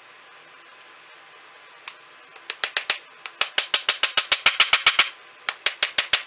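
Small hammer driving nails through a scrap-wood support strip into a mahogany chair's seat rail: a fast run of light, sharp strikes, about five a second, starting about two seconds in, with a brief pause near the end.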